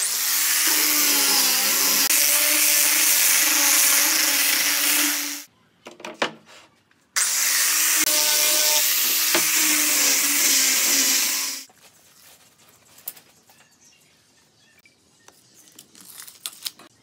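Handheld electric sander run twice against a pine board, each run about five seconds. Each run opens with the motor's tone sweeping up as it spins up, holds steady with the hiss of abrasive on wood, then cuts off. Near the end come a few light clicks and taps of measuring and marking.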